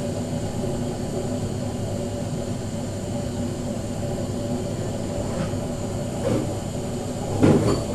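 Gas stove burner running steadily under a wide cooking pan: an even low rumble, with a single knock near the end.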